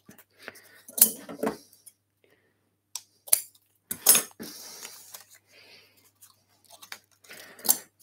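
Handling noises at a wooden workbench: about five sharp clicks and light knocks with faint rustling between, as hands work with curled wood shavings.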